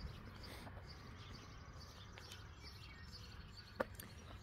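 Faint outdoor background with distant birds chirping now and then, and a single sharp click near the end.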